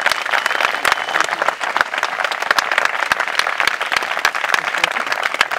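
A crowd of guests applauding, many hands clapping steadily.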